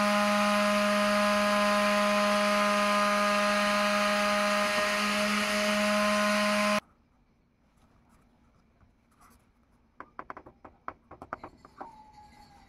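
Small electric motor spinning a homemade fan rotor inside a plastic pipe, running with a steady hum, cuts off abruptly about seven seconds in. Near the end, a quick run of faint clicks and taps.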